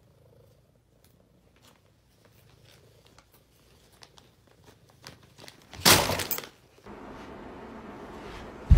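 A bag crinkling and rustling as a cat paws and noses at it, with a loud rustle about six seconds in. Near the end, a heavy thud of a person dropping to the floor.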